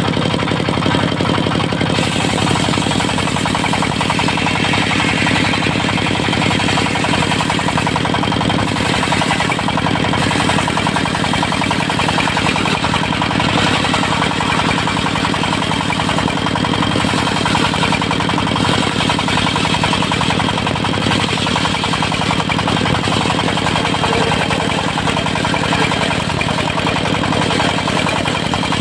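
Diesel engine of a mobile circular sawmill running steadily with a fast, even pulse.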